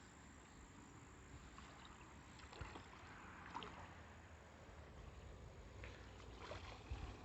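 Near silence: faint outdoor background hiss with a few soft, scattered ticks.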